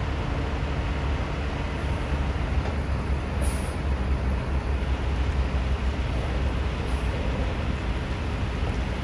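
Heavy diesel trucks creeping along under the load of a house on a trailer: a steady low engine rumble, with a brief high hiss of air about three and a half seconds in.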